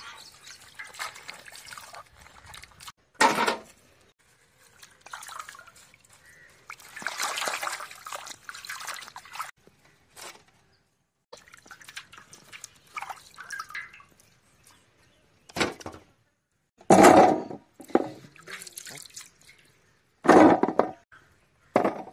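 Vegetables (a cabbage, then green bell peppers) being washed by hand in a steel bowl of water: intermittent sloshing, splashing and dripping, with a few louder splashes.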